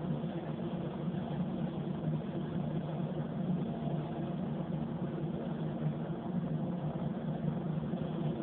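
Steady drone of a paint spray booth's ventilation fans running.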